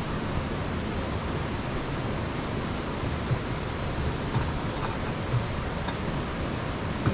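Steady outdoor background hiss, with a few light knocks of a metal cooking pot being set down on a wooden table and its lid handled.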